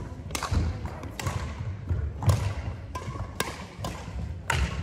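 Badminton rackets striking a shuttlecock, several sharp cracks a second or so apart that echo around a large hall, with players' feet thudding on the wooden court floor.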